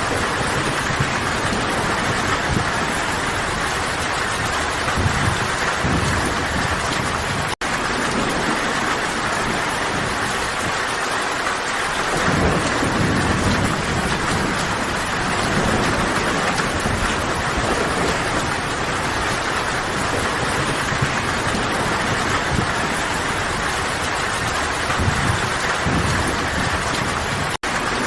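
Steady heavy rainfall, a dense even hiss, with low rumbles swelling and fading beneath it. The sound cuts out for an instant twice, about seven seconds in and again near the end.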